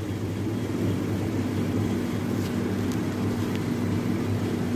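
Steady low mechanical hum of a kitchen fan motor, with two faint clicks about halfway through.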